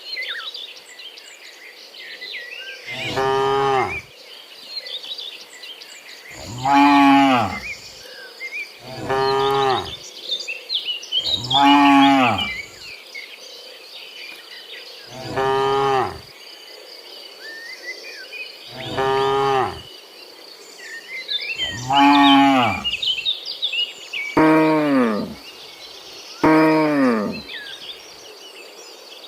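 Cows mooing, about nine separate moos, each about a second long, coming every two to four seconds. Faint high chirping runs under them between the calls.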